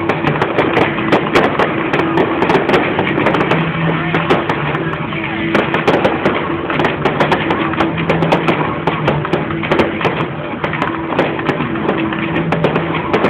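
Fireworks going off in dense, continuous crackling and popping, over music with held low notes.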